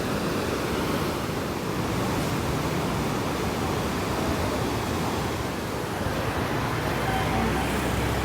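Floodwater rushing, a steady, unbroken noise with no let-up.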